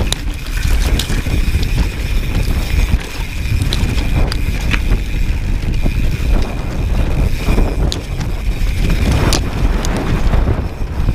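Mountain bike descending over rough grass and rocks: wind buffets the microphone while the tyres rumble over the ground and the bike rattles and knocks over bumps.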